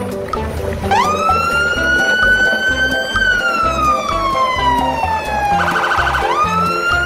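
A wailing siren over background music with a steady beat. It rises sharply about a second in, slides slowly down, gives a short rapid warble, then rises again near the end.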